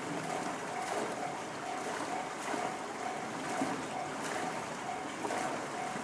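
Japanese railway level-crossing alarm with the JR standard electronic bell sound, ringing a short tone about twice a second. The crossing is warning that a train is approaching.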